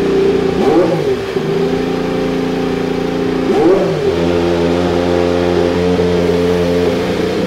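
Red Bull's Honda-built Formula 1 power unit, a 1.6-litre turbocharged V6 hybrid, running at steady revs. The revs rise and fall twice in quick blips, about a second in and again at about three and a half seconds.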